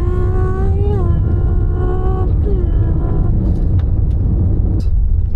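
Steady low rumble of a moving vehicle heard from inside the cabin. In the first three seconds a voice hums or sings long held notes over it.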